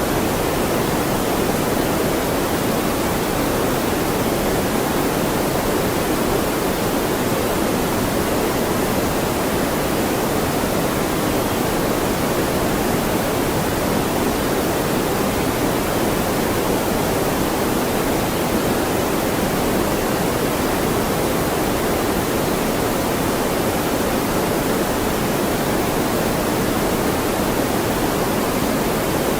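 Loud, steady deep noise, a constant rushing hiss with most of its weight in the low-middle range and a softer hiss above. It does not change.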